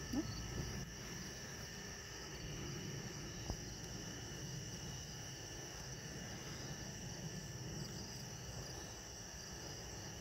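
Crickets trilling steadily at several pitches over a low rumble, with one sharp click about three and a half seconds in.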